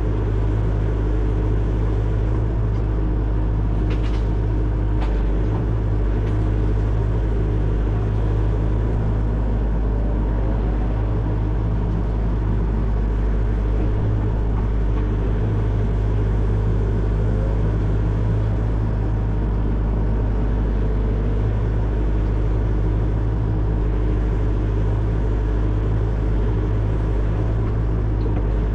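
Excavator's diesel engine running steadily at a constant speed, a deep even rumble with a couple of faint clicks about four and five seconds in.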